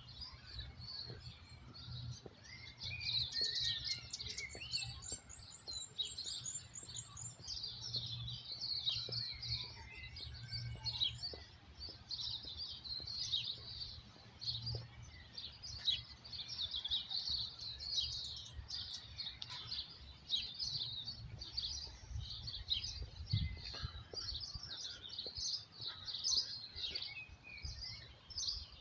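Several birds singing and chirping at once, with dense high chirps and warbles throughout and a fast run of very high notes about four seconds in. A low rumble sits underneath.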